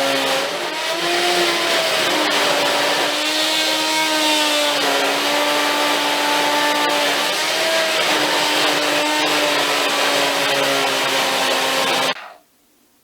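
Oscillating multi-tool running with its blade cutting into the steel lock pillars of a tool cart, a steady high hum over a rough grinding rasp, its pitch wavering slightly as the blade bites. The steel is tough and the cut goes slowly. The tool cuts off suddenly near the end.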